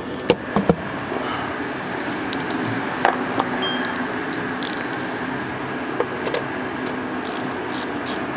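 Plastic engine cover of a Hyundai Santa Fe 2.2 D4EB diesel being pressed back onto its mounts: a few sharp plastic clicks and knocks, three in quick succession near the start, then pairs about three and six seconds in, over a steady background hum.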